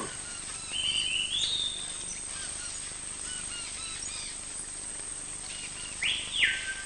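Forest ambience with birds calling: a whistled call about a second in, a louder whistle near the end that drops in pitch and then holds, and faint short chirps in between.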